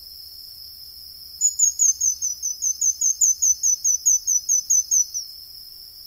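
Pin-tailed manakin singing: a run of about twenty short, high, down-slurred notes at about five a second, starting about a second and a half in and stopping about five seconds in. A steady high insect drone runs underneath.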